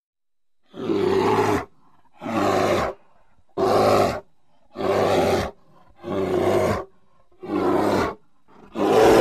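Grizzly bear roaring: a run of about seven short, rough roars, evenly spaced a little over a second apart.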